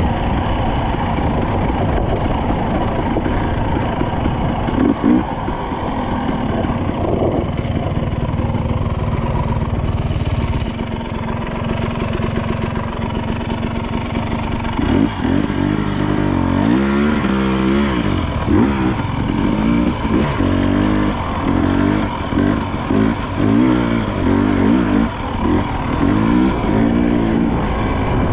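Husqvarna TE300i 300 cc two-stroke dirt bike engine running under load on a trail ride. It is fairly steady at first, then from about halfway revs up and down again and again as the throttle is worked.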